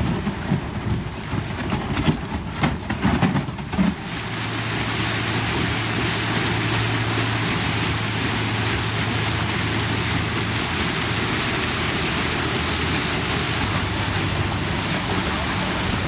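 Tour boat under way: gusty wind buffets the microphone for the first few seconds, then a steady rush of wind and water with the low, even hum of the boat's engine.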